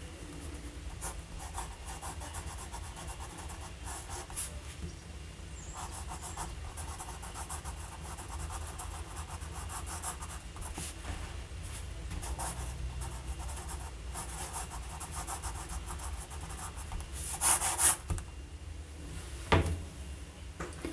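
Fountain pen nib scratching across paper in short cursive strokes, the light feedback of a Parker 61 nib. Near the end come two louder, quicker strokes as the line is underlined twice, then a single knock.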